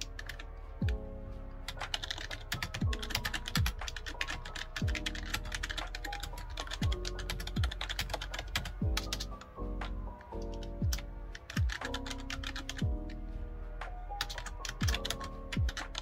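Fast, continuous typing on a backlit computer keyboard, a dense run of key clicks, over background music with falling bass notes.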